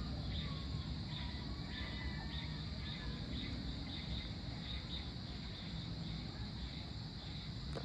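Steady high-pitched insect chorus, pulsing slightly, over a continuous low background rumble, with a few faint bird chirps.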